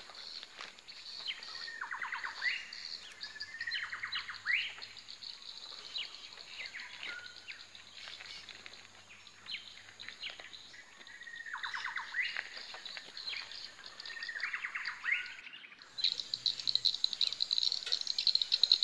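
Wild birds calling over and over, each call a quick run of repeated notes sliding downward, heard about four times. Beneath them runs a steady high insect drone, which grows louder after a brief gap near the end.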